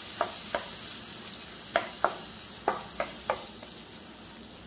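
Diced pineapple sautéing in ghee and oil in a kadai, sizzling steadily, while a wooden spatula stirs it with a series of sharp knocks against the pan. The sizzle fades a little toward the end.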